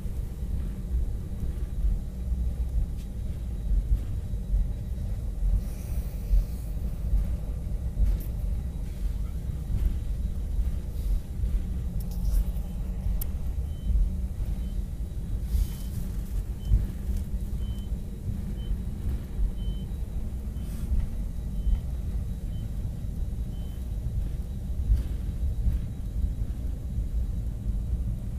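Cabin noise of an Airbus A319 taxiing on the ground: a steady low rumble with irregular bumps.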